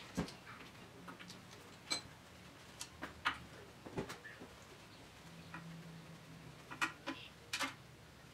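Irregularly spaced sharp clicks and clinks of a socket wrench on an extension being worked on the already-loosened oil pan bolts of a Chrysler 440 big-block V8.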